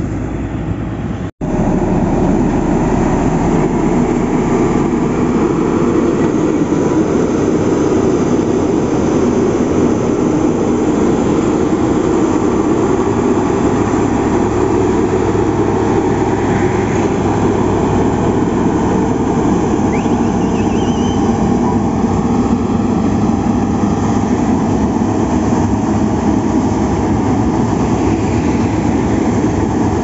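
Single-drum vibratory road roller (LiuGong) running steadily as it compacts the earth and gravel road base, a dense even machine noise. There is a brief cut-out about a second in.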